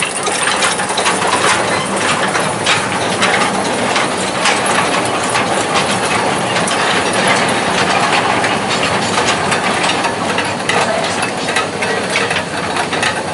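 A narrow-gauge freight train of empty steel tipper skip wagons rattling and clanking along the track, a dense run of sharp clicks and knocks, with a small locomotive's engine running under it.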